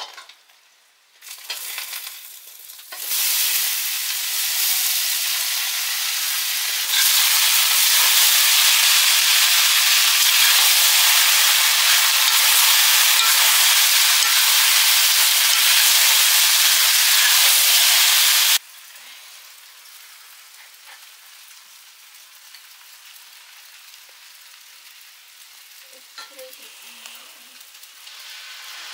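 Food sizzling in hot oil in a pan as it is stirred. The sizzle swells in steps to a loud, even hiss, then drops abruptly to a faint sizzle about two-thirds of the way through.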